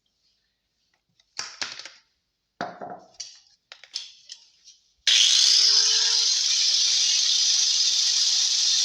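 A few seconds of handling and scraping on the wooden box, then about five seconds in an electric power tool starts to cut the hole for the subwoofer. Its motor pitch rises briefly and then holds steady.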